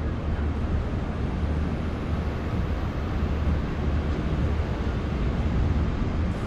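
Wind buffeting the camera's microphone: a steady, uneven low rumble.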